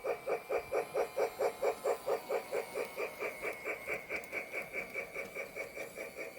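Lionel Polar Express toy steam locomotive's electronic chugging sound effect, a rapid, even chuff of about six beats a second from its small speaker as the train runs.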